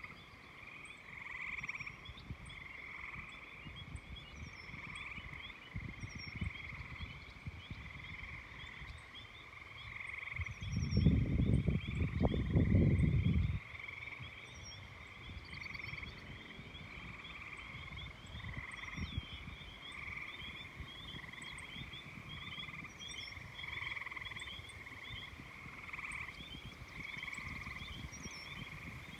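A chorus of frogs calling continuously in pulsing overlapping waves. About ten seconds in, a low rumble lasting about three seconds rises over the chorus and is the loudest sound.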